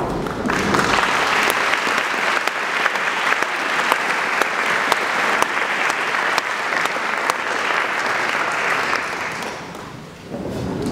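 Audience applause: dense clapping that starts about half a second in and fades away near the end.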